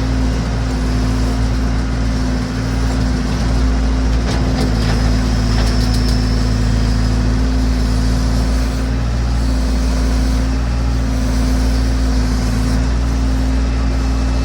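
Massey Ferguson BX 50 backhoe engine running steadily, with a faint high whine about five seconds in.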